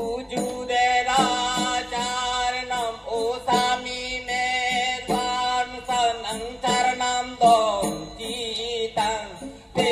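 Karbi traditional folk song performed live: a sung melody with wavering pitch over a steady drum beat of about two strokes a second, with traditional instruments.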